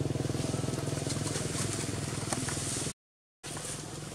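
A motorcycle engine idling steadily, cutting off suddenly about three seconds in; after half a second of silence a fainter outdoor background takes over.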